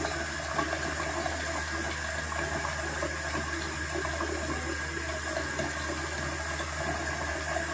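A steady rushing hiss with a low hum beneath it, unchanging throughout.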